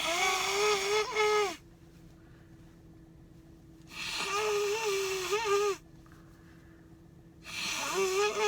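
Three long, honking nose blows into a tissue, about four seconds apart. Each is a horn-like tone lasting about a second and a half that holds its pitch and wavers just before it stops.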